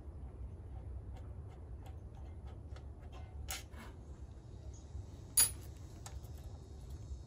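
Light, uneven clicks and ticks of hand tools working on a small engine's side case, with one sharper click about five seconds in, over a low steady rumble.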